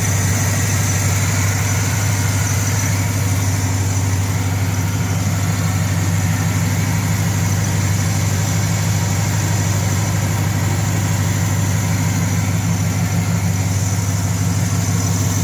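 Vehicle engine idling steadily, with no exhaust leak to be heard: the leak at the front of the exhaust has just been sealed.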